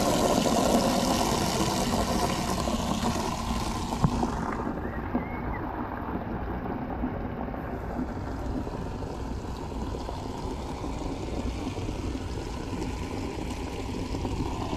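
Water jetting from a hose into a bucket, splashing steadily as the bucket fills. The splashing drops a little and softens about four seconds in.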